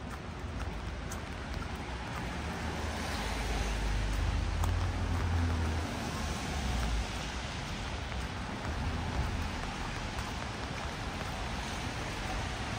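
Steady hiss of rain and a wet city street. A vehicle passes on the wet road, its low rumble building from about two seconds in and fading by about seven seconds.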